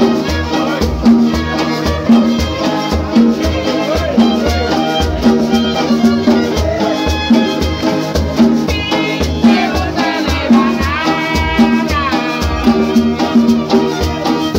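Live string band playing a lively dance tune: violins carry the melody over guitar, with a steady pulsing bass beat.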